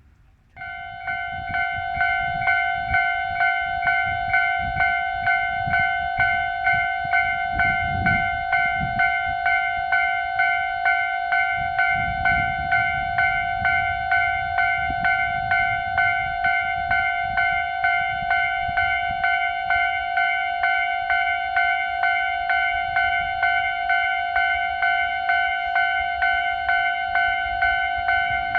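Railway level-crossing warning bell starting up about half a second in and ringing steadily, about two dings a second, warning that a train is approaching and the crossing is closing. A low rumble runs underneath.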